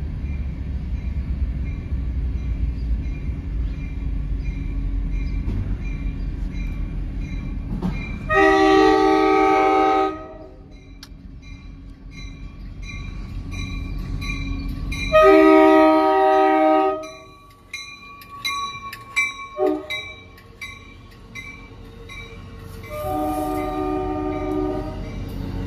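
Passenger train rumbling past on the rails, then a multi-chime train horn sounding three long blasts, with a few short toots between the second and third.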